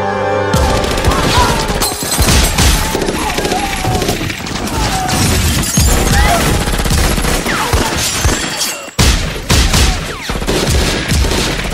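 Music cuts off about half a second in, and sustained rapid automatic gunfire from several submachine guns follows, with things shattering under the hits. The firing breaks off briefly about nine seconds in, then resumes.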